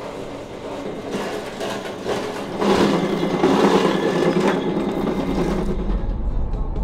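Water pouring from a spout into a plastic bucket, building up and running strongly for a few seconds before stopping. Near the end a low vehicle rumble takes over.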